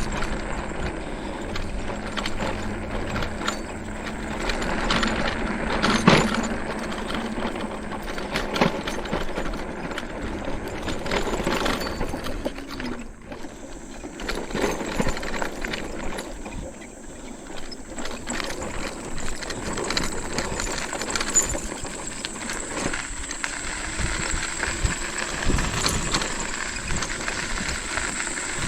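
Electric bike ridden over rough ground: the frame rattling and knocking over bumps, with a faint steady motor hum at times.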